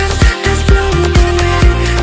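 Electronic dance track playing, a kick drum beating about twice a second under sustained synth tones.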